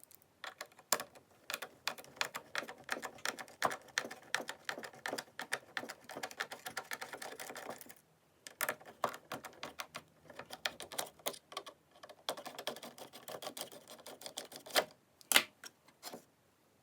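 Hands working on the plastic parts of a De'Longhi Magnifica coffee machine: dense, irregular clicking and clattering, with a short pause about halfway and a louder knock near the end.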